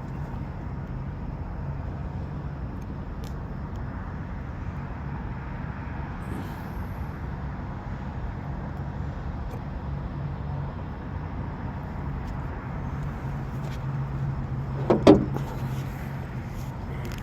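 Steady low hum of an engine running, with a short, louder sound about fifteen seconds in.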